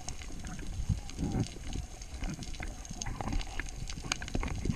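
Muffled underwater noise picked up by a GoPro in its waterproof housing: an uneven low rumble with scattered sharp clicks and a few dull thumps.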